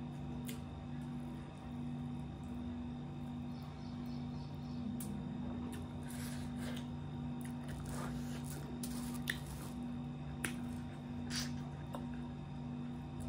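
Eating by hand: wet chewing and lip smacks, with fingers squishing and mixing rice and fish curry, and a few short sharp clicks in the second half. A steady low hum runs underneath.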